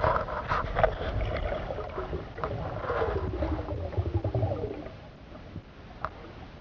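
Muffled underwater water noise picked up through an underwater camera's housing as a diver swims along the river bottom: a low rumble with gurgling and scattered sharp clicks, fading after about five seconds.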